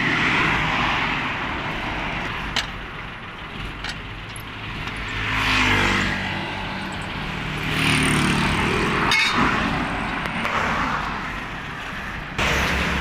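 Road traffic going by, several vehicles swelling past in turn with engine hum under the tyre noise, with a few sharp metal clinks from a cross lug wrench on the wheel nuts.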